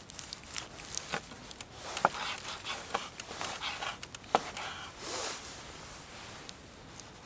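Handling sounds at a camp: a run of small clicks, knocks and scrapes, with a short zip-like rasp about five seconds in, then quieter.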